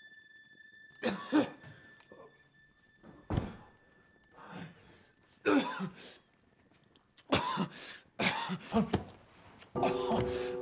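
A man coughing and gagging in harsh fits, several seconds apart, as if choking. A thin steady high tone sounds over the first part, and music comes in near the end.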